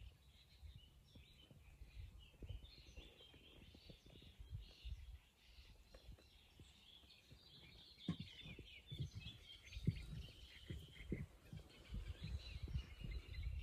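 Songbirds chirping and singing, faint and continuous, over irregular low rumbles of wind buffeting the microphone that grow stronger in the second half.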